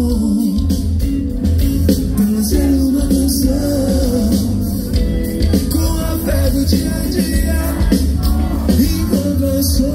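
Live band music with a male singer singing into a microphone over a heavy bass and a steady beat.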